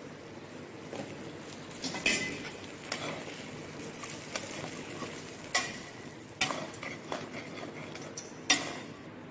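Flat steel spatula scraping and knocking against a metal kadhai as fried baby potatoes are stirred into gravy, a stroke every second or so, over a steady low sizzle of the cooking gravy.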